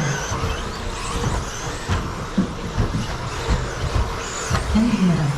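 Electric 1/10 stadium trucks with 13.5-turn brushless motors running on an indoor carpet race track: a steady mix of motor whine and tyre noise, with occasional knocks as trucks land or hit the boards.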